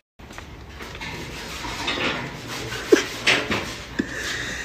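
A large aluminium cooking pot being handled, with a few sharp metallic knocks and clatter over a steady background hiss.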